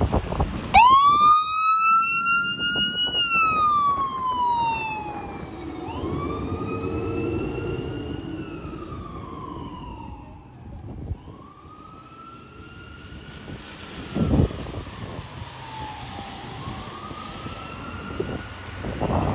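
Fire engine's siren starting up about a second in and wailing, its pitch slowly rising and falling in long cycles of about five seconds as the truck responds. A short, loud low blast cuts in about fourteen seconds in.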